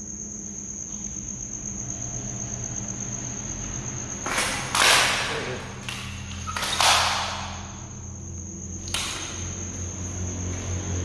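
Crickets chirping steadily in a high, unbroken drone, with a few louder brief noises over it, the two strongest about a second long near the middle.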